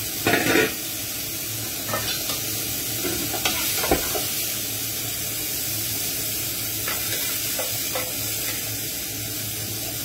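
Steak strips, onions and mushrooms sizzling steadily in a frying pan, with a few knocks of metal tongs against the pan and plate as the meat is lifted out. The loudest knocks come near the start and about four seconds in.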